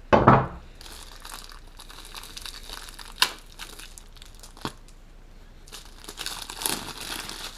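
Packaging being cut open and handled: crinkling and tearing with scattered sharp clicks, denser crinkling near the end. A short thump opens it and is the loudest sound.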